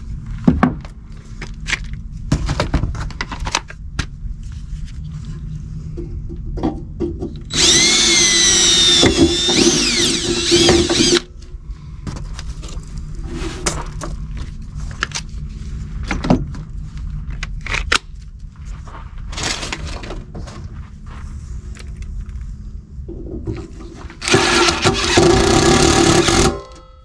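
Cordless drill boring into a metal forge burner tube in two runs of a few seconds, the bit squealing with a wavering pitch. Clicks and knocks of handling come in between.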